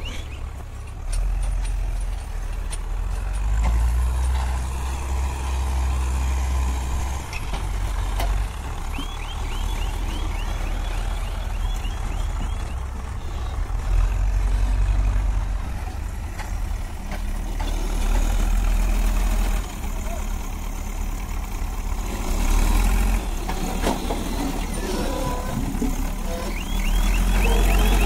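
Cat 424B backhoe loader's diesel engine working under load, swelling and easing as the loader drives and lifts its bucket of soil. Its reversing alarm beeps in a quick series twice, about nine seconds in and again near the end.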